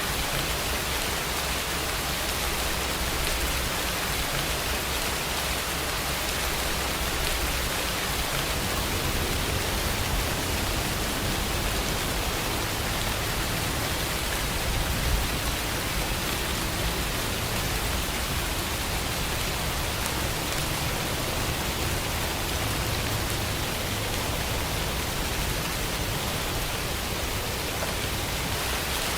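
Steady, dense rainfall, an even hiss of many drops. A low rumble underneath grows stronger about eight seconds in and stays.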